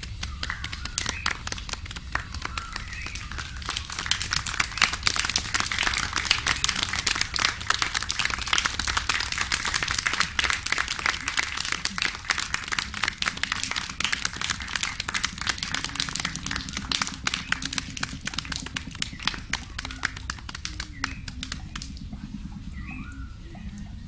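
Dense patter of many rapid small clicks that swells about four seconds in and dies away near the end, with bird-like chirping whistles at the start and the end.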